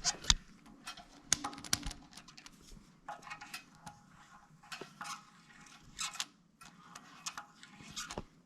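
Scattered light clicks, taps and scrapes of small parts being handled against metal, with a few sharper clicks about a second and a half in and again about five, six and seven seconds in.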